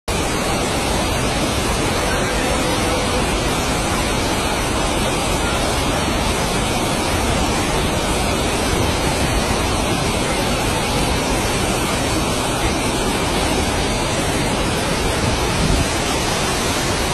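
Loud, steady rushing of floodwater.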